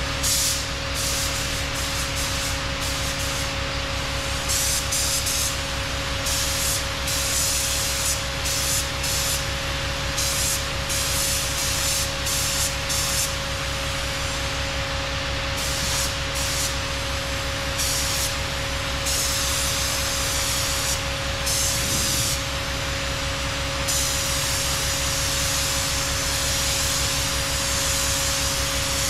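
Compressed-air paint spray gun hissing in short on-off bursts as the trigger is pulled and released, then in a longer unbroken spray near the end, over a steady machine hum.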